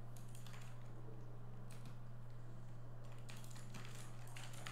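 Typing on a backlit gaming keyboard: a few keystrokes at the start, one about halfway, then a quicker run of key clicks near the end. A steady low hum runs underneath.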